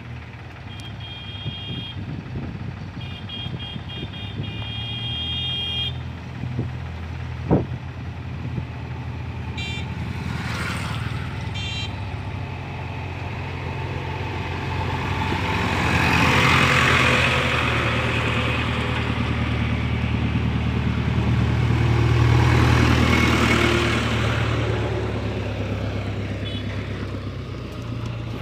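JCB backhoe loader's diesel engine running steadily on the road, a constant low drone, swelling louder twice in the second half. Strings of short high beeps sound in the first few seconds, and a sharp click comes about seven seconds in.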